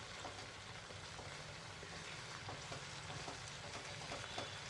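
Faint sizzling of an onion-tomato masala paste with ground spices frying in oil in a nonstick pan while a silicone spatula stirs it: the masala being roasted (bhuna) in its oil.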